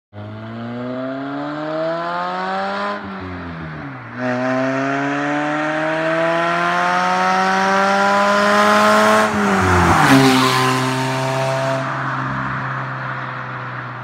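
Honda Accord CB7 four-cylinder engine revving hard through the gears as the car comes up the road. The note climbs, drops at a gear change about three seconds in, then climbs again for about five seconds. Around ten seconds in it falls away as the car passes close by, then holds a steady, lower note and fades.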